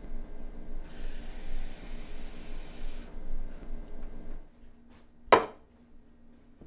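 Kitchen sink tap running for about two seconds as a glass is filled with water, then stopping. Near the end, a single sharp knock as the glass is set down on the countertop.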